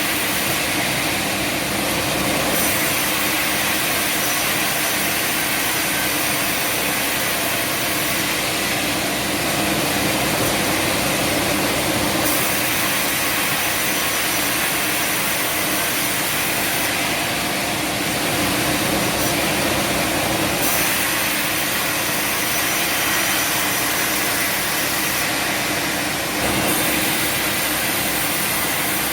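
Sawmill machinery running steadily: a motor's continuous noise, with the high hiss shifting in level every few seconds.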